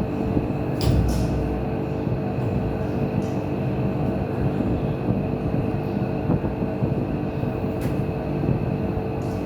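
A machine running with a steady drone and several constant humming tones. A few sharp knocks come through, two about a second in and one or two near the end.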